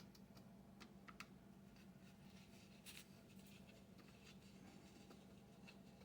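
Near silence: a few faint, scattered clicks and taps of small parts being handled and fitted by hand, over a low steady hum.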